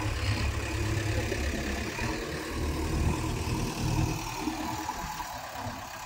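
Diesel engine idling with a steady low rumble.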